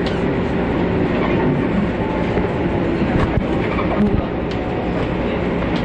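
JR 415 series electric train running and slowing under braking, heard from inside the car: a steady rumble of wheels on rail with a low hum and a few sharp clicks.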